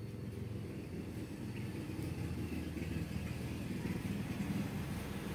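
Low, steady rumble of a motor vehicle's engine, growing gradually louder over the first few seconds and then holding level.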